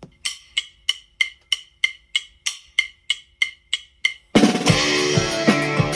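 A count-in of sharp, evenly spaced clicks, about three a second, then a full rock band with drum kit, bass and guitar comes in together a little over four seconds in.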